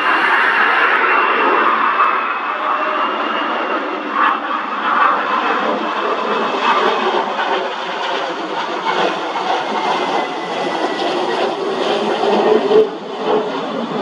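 Lockheed Martin F-22 Raptor with its landing gear down, its twin jet engines passing low overhead: a steady, loud rush of jet noise with a high whine that slowly falls in pitch.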